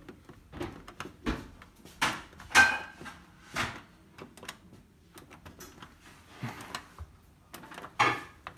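Scattered knocks and clicks from hands working at an integrated washing machine. There are about half a dozen sharp strikes, and the loudest comes about two and a half seconds in.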